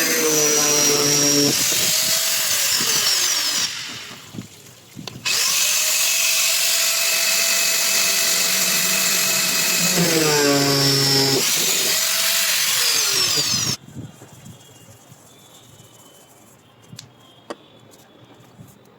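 Electric power drill running in two long runs, its motor pitch sliding up and down as it speeds and slows, with a short break between the runs. About three-quarters of the way through it stops, leaving a few light taps.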